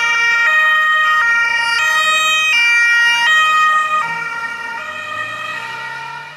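Several Carabinieri patrol cars' two-tone sirens sounding together, their high–low steps out of step with one another, with a car engine rising in pitch underneath near the end as the sound dies away.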